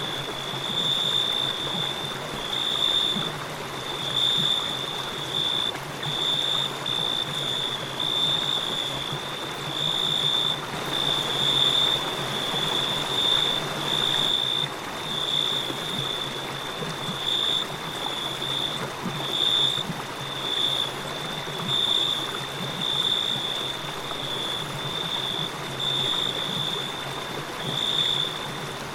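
Crickets chirping in a high-pitched, pulsing trill over the steady rush of a flowing river.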